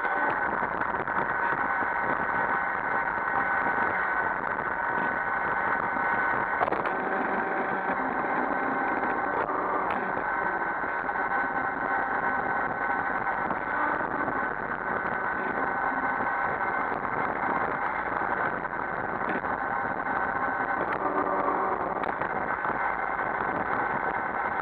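iRobot Roomba 560 robot vacuum running: the steady whir of its vacuum motor and brushes with a thin high whine, and a single knock about seven seconds in.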